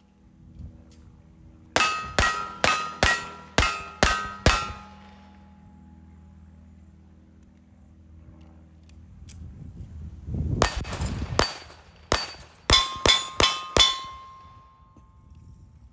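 Gunshots at steel targets, each shot followed by the ringing clang of the struck steel. About seven shots come in quick succession in under three seconds. Around the middle there is a burst of louder rushing noise. Near the end comes another fast string of about six shots; the last pistol string is fired by a shooter aiming at the steel.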